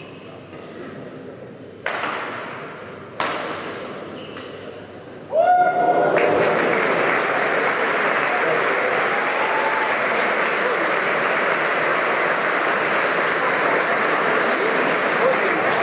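Two sharp racket strikes on a shuttlecock, each with a trailing echo, then about five seconds in the crowd breaks into loud applause and cheering that carries on.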